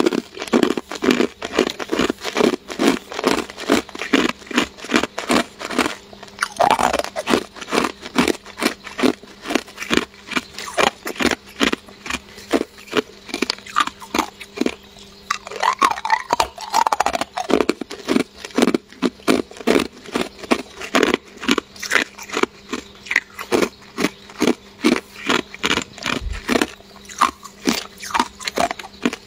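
Hard chunks of clear ice being bitten and chewed, a steady run of loud, crisp crunches about three a second.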